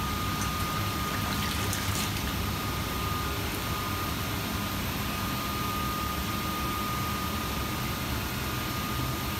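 Steady noise of running water with a constant thin high-pitched whine, and a few light clicks about one to two seconds in.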